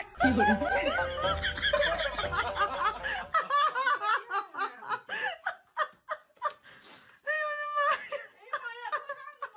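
People laughing and giggling in quick repeated bursts, strongest in the first few seconds and then coming in shorter fits.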